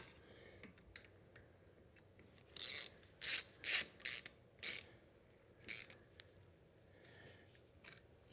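Hand socket ratchet turning in a bolt on the oil filter cover of a Yamaha Big Bear ATV engine. It makes a string of short, quiet ratcheting strokes, about seven of them, in the middle few seconds, then a couple of fainter ones near the end.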